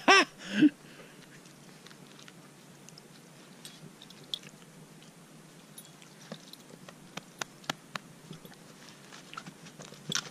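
Dog chewing on a shoe: faint, scattered sharp clicks and crunches of teeth on the shoe.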